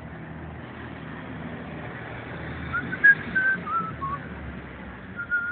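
Someone whistling a short tune: a quick run of clear notes stepping up and down starting about halfway in, then two longer held notes near the end, over steady street traffic noise.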